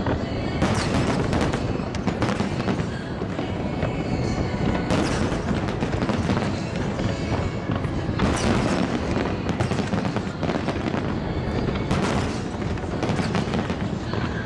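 Aerial fireworks display: a dense, continuous run of shell bursts, booms and crackle, with heavier clusters of bursts about a second in, around five seconds, around eight and a half seconds and around twelve seconds.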